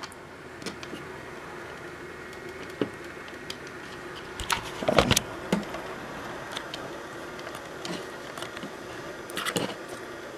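Steady hum of running equipment with a few short clicks and knocks from handling, the loudest cluster about five seconds in and another near the end.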